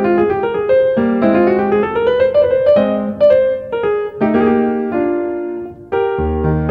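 Piano music laid over the picture: a quick, busy keyboard piece of many short struck notes, with a rising run of notes about a second to two seconds in.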